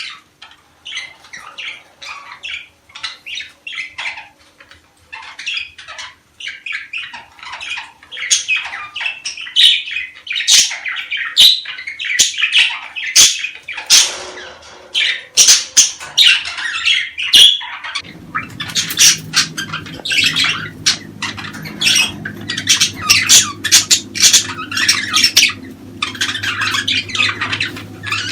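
Budgerigars chattering, with rapid chirps and squawks that grow busier and louder in the second half. A steady low hum starts about two-thirds of the way in.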